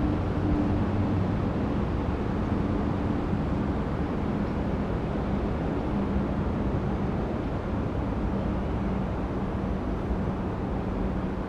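Steady outdoor background rumble with a faint, wavering low hum underneath; no distinct kicks or impacts stand out.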